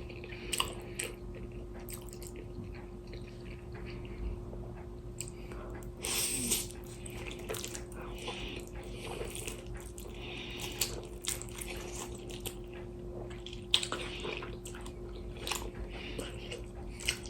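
Close-miked eating: chewing and slurping instant noodles and kimchi, with scattered wet smacks and clicks.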